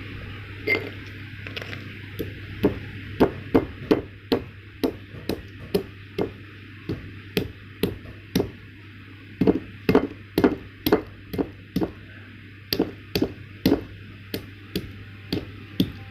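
Pestle pounding kencur (lesser galangal root) in a mortar: a long run of sharp knocks, about two to three a second, with short pauses between runs, over a faint steady low hum.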